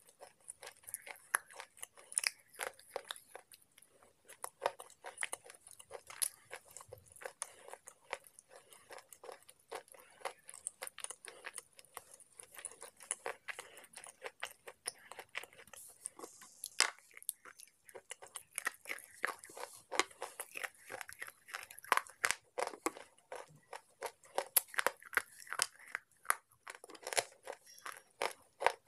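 Slate pencil sticks being bitten and chewed close to the microphone: a dense, irregular run of dry crunches and crackles.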